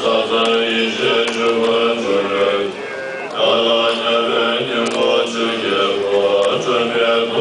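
Tibetan Buddhist monks chanting a mantra together in long, held notes, with a short dip for breath about three seconds in.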